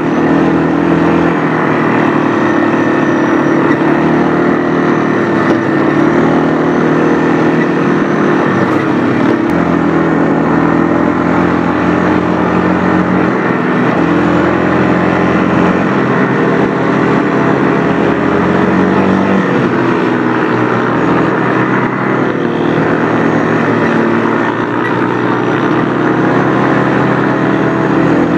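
Quad bike's engine running as it is ridden, its pitch rising and falling with the throttle, heard close up from the handlebars.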